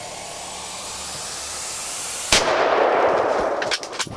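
A hiss that grows steadily louder, then a sudden loud bang a little over two seconds in, like a gunshot, its noise dying away over a second or so, followed by a few sharp clicks near the end.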